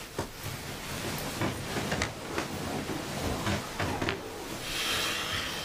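Bedclothes rustling with a series of soft knocks as someone settles into bed, then a longer swish of the sheet near the end.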